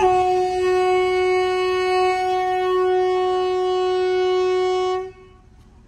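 Narrow-gauge locomotive horn sounding one long, steady blast of about five seconds before cutting off sharply: the train warning as it approaches a level crossing.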